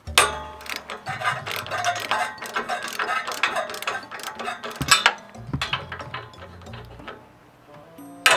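Rapid mechanical clicking and clinking of metal hand tools at work, over background music.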